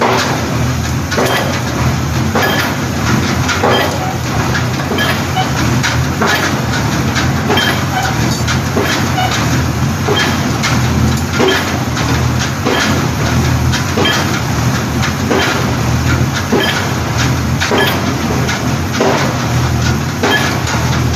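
A mobile pile-driving rig's engine runs steadily while its hammer strikes an I-section concrete pile about once every 1.3 seconds, a regular series of sharp blows.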